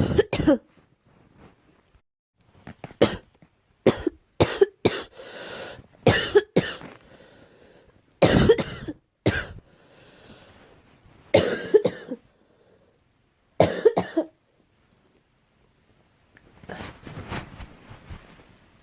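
A girl coughing again and again: short coughs, singly or in quick groups of two or three, with pauses of a second or two between fits and a softer run near the end.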